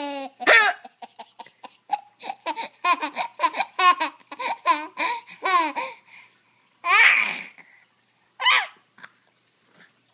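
Hearty high-pitched laughter in a rapid run of short bursts, then after a short pause a louder burst about seven seconds in and a single shorter one a second and a half later.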